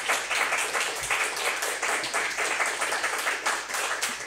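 Applause: hands clapping quickly and densely throughout.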